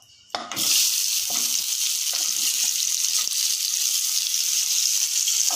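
Boiled potato pieces tipped into hot mustard oil in a non-stick kadai, setting off a loud sizzle that starts suddenly about half a second in and keeps going steadily. A wooden spatula stirring gives a few soft knocks under the sizzle.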